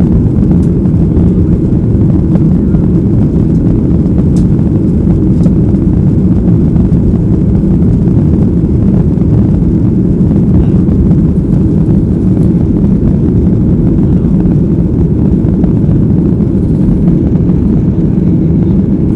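Cabin noise of a Boeing 737 jet airliner climbing after take-off: a steady, loud, low roar of the jet engines and rushing air, heard from inside the cabin.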